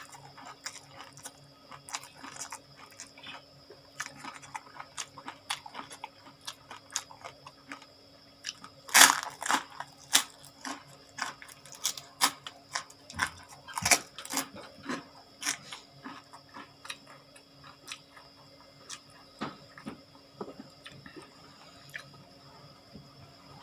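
Close-miked chewing and crunching of raw vegetables and crackers: many wet clicks of chewing, with louder crunchy bites about nine and fourteen seconds in.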